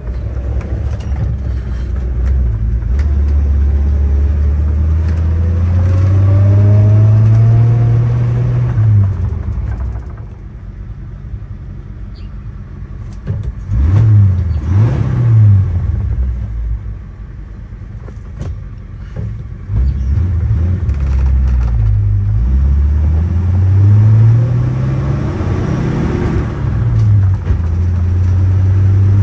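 1947 Chrysler Town & Country's 323 cubic-inch L-head straight-eight engine heard from inside the car while driving, its pitch climbing as the car accelerates and then falling away sharply about nine seconds in. It pulls up again later and drops once more near the end, over steady wind and road noise.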